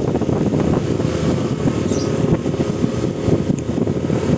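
Motor vehicle engine running steadily under load on a steep uphill climb, with rough rumbling noise.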